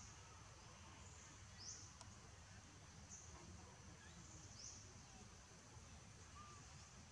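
Faint forest ambience: a steady high-pitched insect drone, with a short high rising chirp about every second and a half.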